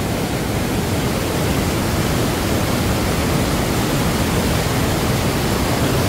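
Steady rush of a waterfall and the rapids below it, the stream running very high and fast over granite rocks.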